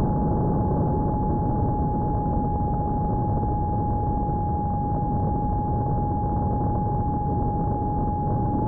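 Electric motor and propeller of a small RC airplane running at a steady cruise throttle, an even whine with a steady rush of airflow and wind noise, picked up by the camera on board.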